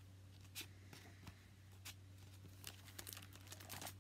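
Faint rustling and soft scrapes of paper book pages being handled and flipped, a scatter of short sounds that gets busier in the second half, over a steady low hum.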